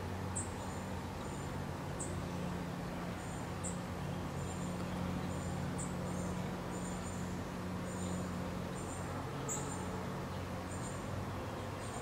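Outdoor ambience of insects chirping: short, very high-pitched chirps repeat irregularly, two or three a second, over a steady low hum.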